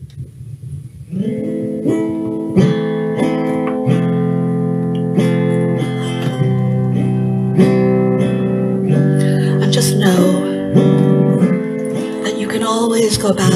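Zither-type string instrument strummed and plucked, ringing sustained chords that begin about a second in. A voice sings wavering notes over the strings in the last few seconds.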